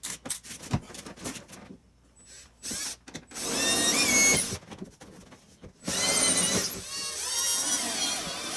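A handheld power drill boring holes through boat fiberglass. It runs in two stretches, a short one with a whine that rises and falls a few seconds in, then a longer one from about halfway on, after a few light clicks at the start.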